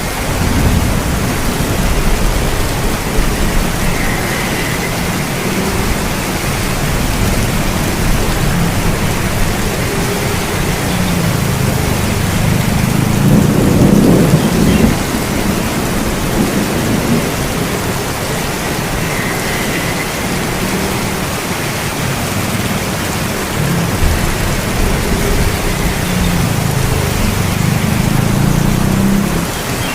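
Heavy rain falling steadily, with thunder rumbling low beneath it: the rumble swells about halfway through and again near the end.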